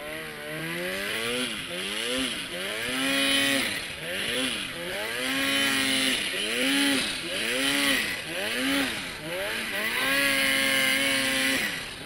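Arctic Cat Turbo snowmobile engine revving up and down over and over under the rider's throttle while ploughing through deep powder. It holds steady at high revs a few times, the longest for about a second and a half near the end.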